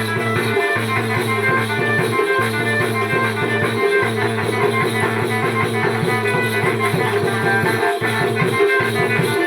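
Rhythmic music with drums and shaken rattle-like percussion over a steady bass line.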